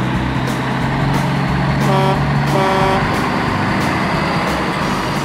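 Heavy truck engine sound effect running steadily at a constant pitch. Two short horn toots come about two seconds in.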